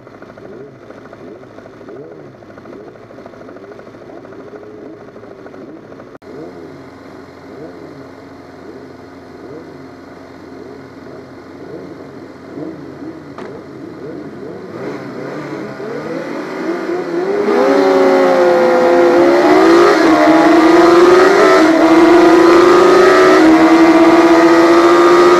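Racing motorcycle engines blipped again and again while waiting on the grid. About 17 seconds in, the onboard Yamaha FZ600's inline-four revs hard from the start and climbs through the gears, its pitch dropping briefly at each shift before holding high.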